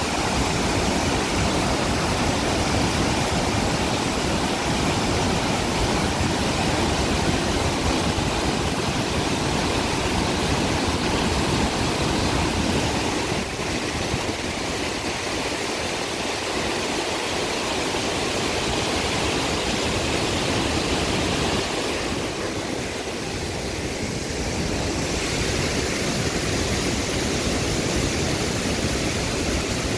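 Steady rush of flood water pouring through the open spillway gates of a hydropower dam during a flood release, a dense even noise of falling white water. Its tone shifts about halfway through and dips briefly later on.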